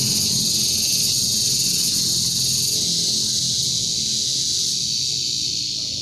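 A chorus of cicadas singing in the trees: a loud, steady, high-pitched buzz that does not let up.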